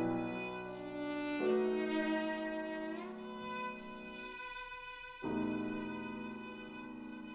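Violin playing a slow, lyrical melody in long held notes with vibrato; new notes come in about a second and a half in and again about five seconds in, each fading gently.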